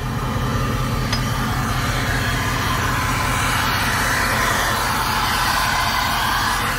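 Diesel locomotive engine idling, a steady low drone, with a steady hiss above it.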